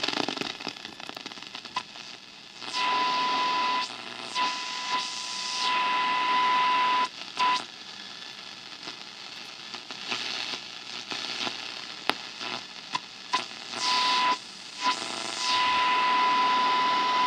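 Sanyo Campanetta radio's shortwave band hissing with static as it is tuned toward 5 MHz, the noise swelling and dropping as the dial moves, with a steady high whistle tone that comes and goes several times. No station comes in clearly, which the owner blames on the house's wire stucco walls blocking shortwave reception.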